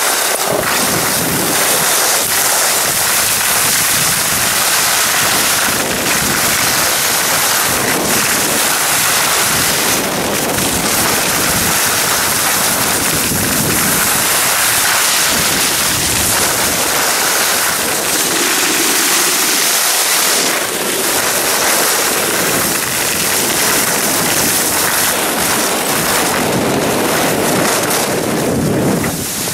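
Wind rushing over the microphone together with the hiss and scrape of edges sliding over packed snow on a downhill run. A loud, steady noise that eases off right at the end.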